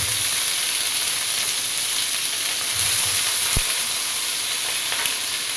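Raw beef pieces sizzling in hot oil in a pan as they go in: a steady frying hiss, with a couple of soft bumps and one sharp knock about three and a half seconds in.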